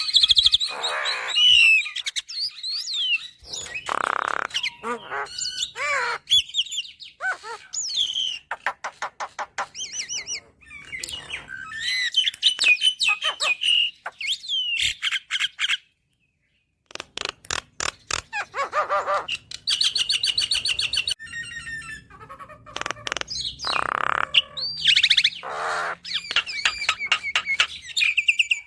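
Javan myna (jalak kebo) singing a long, varied song of whistled glides, rapid clicking trills and harsh rasping notes, broken by a second of silence about halfway through.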